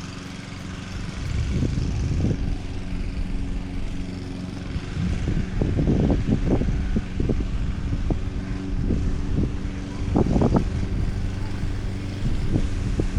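A motor engine running at a steady speed with an even hum, overlaid by louder irregular low rumbling surges several times.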